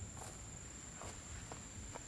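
Faint footsteps: a few soft, irregular steps, with a thin, steady, high-pitched whine throughout.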